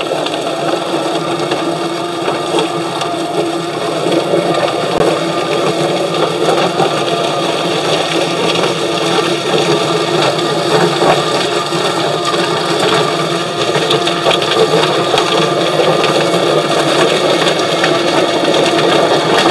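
Electric drum-style chicken plucker running steadily, its spinning plate tumbling two scalded chickens against the rubber plucking fingers to strip their feathers, while a hose sprays water into the drum.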